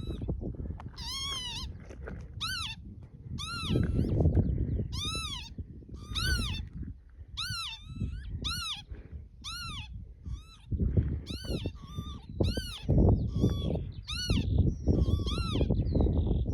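Northern lapwings calling, a run of about fifteen calls roughly one a second, each sliding up then down in pitch. Under the calls runs a gusty low rumble of wind on the microphone.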